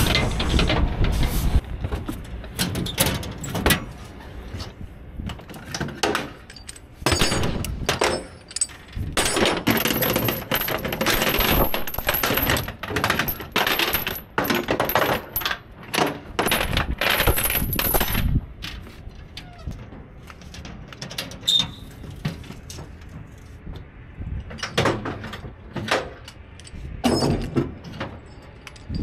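A long run of irregular knocks and clatters, dense for the first two-thirds and thinning out after about 18 seconds.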